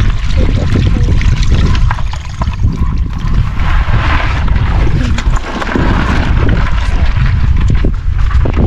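Shallow water splashing and sloshing, with scattered sharp splashes, under a heavy rumble of wind on the microphone.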